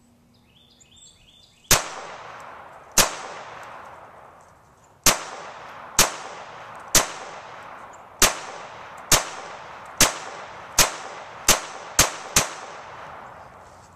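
Walther PPQ M2 .22 LR pistol firing a full 12-round magazine of mixed bulk ammunition: twelve sharp single shots, each with a short echo. They come about a second apart and then faster toward the end.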